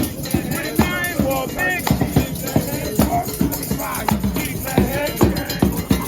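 Mardi Gras Indian street procession music: hand percussion with shakers, tambourines and drums beating a fast, steady rhythm, with voices chanting and singing over it.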